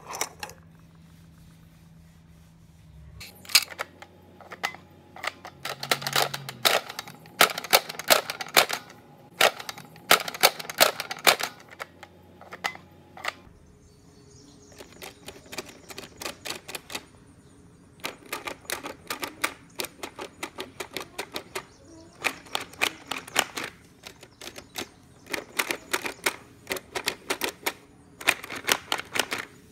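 Bursts of rapid, sharp clicking and clattering from hard plastic toys being handled, many clicks in each cluster, like a typewriter, with short pauses between clusters.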